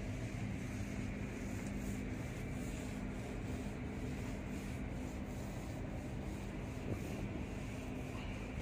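Steady low drone of a ship's machinery under way, two even hum tones under a constant rushing noise.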